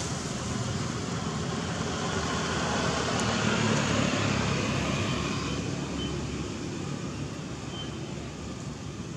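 Steady rushing outdoor background noise over a low hum, swelling about three to four seconds in and then slowly fading.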